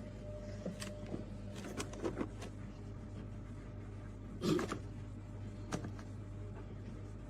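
A steady low hum, with a few scattered knocks and clicks and one louder clatter about four and a half seconds in.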